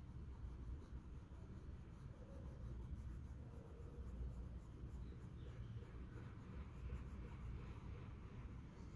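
Coloured pencil shading on paper: a faint scratching of the pencil tip rubbing over the page, over a low steady rumble.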